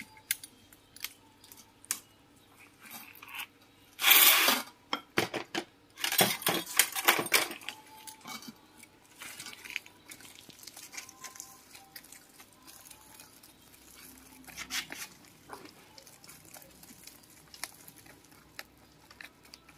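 A small metal pick scraping and raking old soil out from among a bonsai fig's roots: irregular scratches and clicks of metal in crumbly earth, loudest in a burst about four seconds in and a run of scrapes around six to seven seconds.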